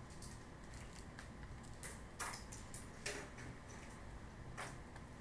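Faint taps and scratches of a stylus writing on a tablet: several short, sharp clicks at uneven intervals.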